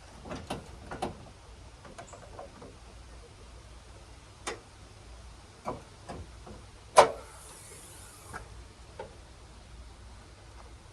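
Scattered knocks and clicks of hands-on work on a pickup truck's damaged front end, with one loud clank about seven seconds in followed by a brief scrape.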